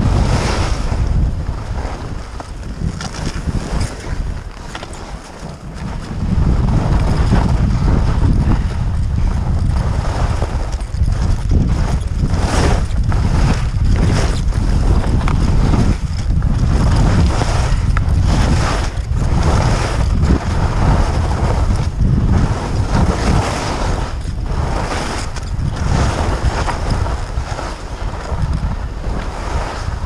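Wind buffeting the microphone of a camera worn by a skier moving through powder, a heavy low rumble throughout that eases off for a few seconds early in the run. Over it, the hiss of skis through snow swells with each turn.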